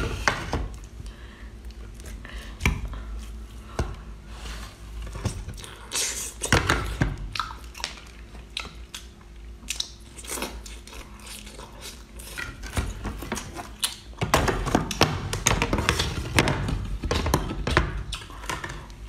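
Close-up mouth sounds of a person biting and chewing raw oyster meat, with scattered sharp clicks and knocks of the large oyster shells being handled. The eating noises come in clusters, busiest in the last few seconds.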